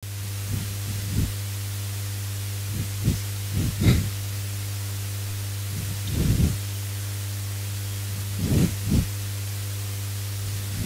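Steady electrical hum on a clip-on microphone, with a few soft, low bumps and rubs as a whiteboard is wiped clean.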